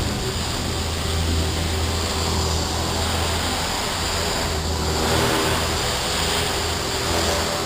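Align T-REX 500 electric RC helicopter in flight: a steady drone of the spinning rotor blades and the motor's hum, holding an even pitch and level.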